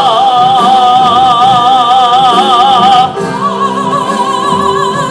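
A soprano voice sings two long held high notes in an operatic style with wide vibrato. The second note is higher and starts about three seconds in. Steady lower accompaniment sounds underneath.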